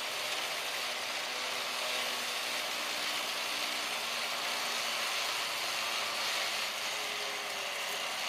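Vehicle-mounted electric winch motor running steadily with a whirring hiss, cutting off abruptly near the end.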